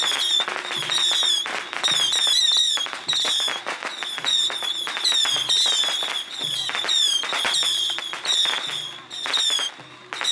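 A string of firecrackers going off in rapid, irregular cracks, thinning out near the end.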